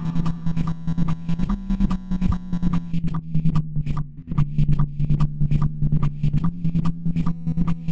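Looped electronic music playing back from a loop station: a steady low bass drone under a fast, even percussive pattern of about four hits a second. About three seconds in the upper layers drop out as tracks are stopped, leaving the drone and thinner hits.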